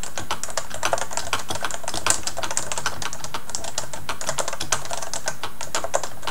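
Typing on a Topre Realforce 103U-UW keyboard: a fast, continuous run of key presses on its Topre capacitive rubber-dome switches, several keystrokes a second without a break.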